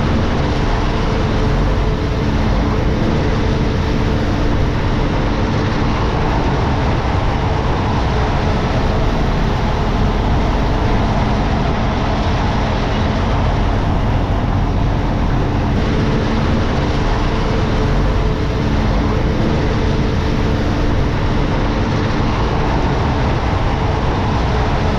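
Truck engine running steadily with road and rattle noise, heard from inside the cab while driving.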